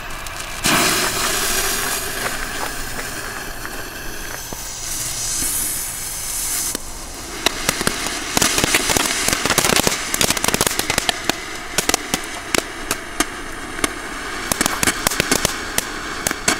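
Small ground fountain firework, a Weco 'Angry Bert' gold-glitter fountain, lit: a sudden hiss of sparks starts about a second in and runs steadily for some six seconds. It then turns into rapid, dense crackling and popping for the rest of the burn.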